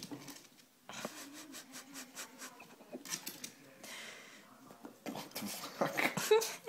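A ferret rummaging through socks and clothes in wooden dresser drawers and scrambling from one drawer into the other: irregular fabric rustling with scattered knocks and scrapes, and a short pitched vocal sound near the end.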